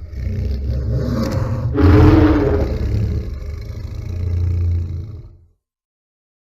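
Giant movie monster's roar sound effect: a low, rumbling cry with a louder, higher surge about two seconds in, then fading out over the last second before it stops.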